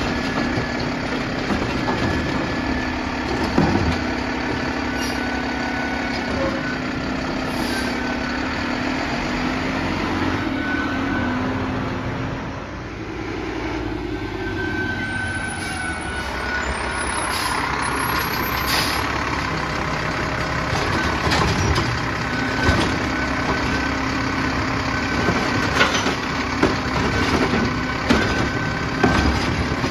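Mack LR side-loader garbage truck's engine running steadily, dropping briefly and then rising again as the truck pulls up. Near the end, the Heil Durapack Rapid Rail automated arm grabs and lifts a plastic wheeled cart, with repeated knocks and bangs from the cart and the arm.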